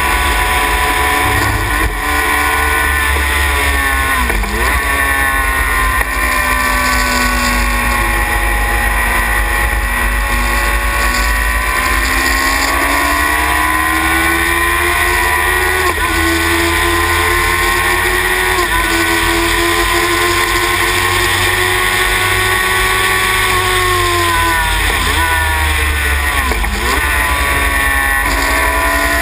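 Sylva Phoenix sports racer's engine at racing load, heard on board. Its note drops sharply about four seconds in, climbs and sags slowly through the middle, then drops twice in quick succession near the end as the car brakes and changes down for corners.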